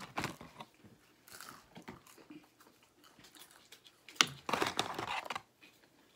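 Close-up eating sounds: chewing and biting into McDonald's chicken nuggets, with small clicks. About four seconds in comes a sharp click, then about a second of crackling.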